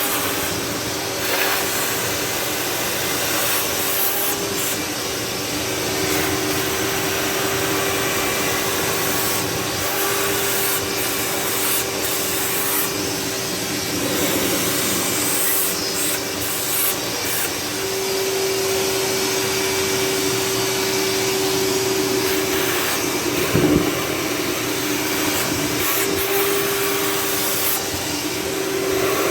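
Shop vac running steadily with a constant motor whine, with short changes in its rush as the nozzle is worked, and a single knock about three-quarters of the way through.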